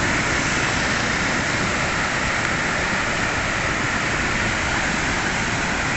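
Heavy tropical rain pouring down, with runoff water rushing: a steady, unbroken rushing noise.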